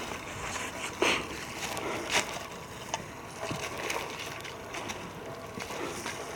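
Footsteps crunching through dry fallen leaves, with leaf rustling between steps.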